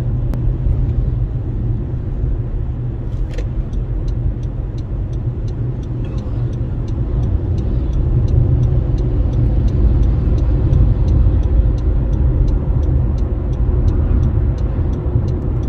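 Steady low road and engine rumble of a vehicle driving along a highway. From a few seconds in, a faint regular ticking runs at about two ticks a second.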